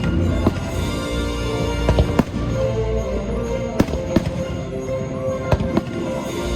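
Fireworks bursting: about seven sharp bangs at uneven intervals, over the show's music soundtrack playing through loudspeakers.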